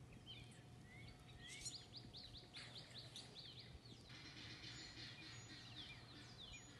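Near silence outdoors with faint birdsong: a bird gives a quick run of short high chirps, about three or four a second, for a couple of seconds, then scattered single chirps.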